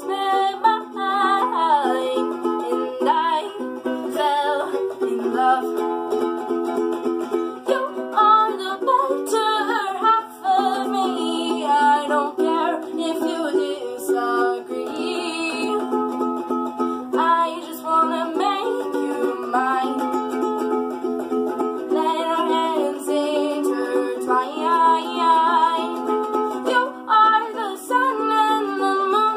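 A girl singing to her own strummed ukulele, the chords steady under a wavering sung melody.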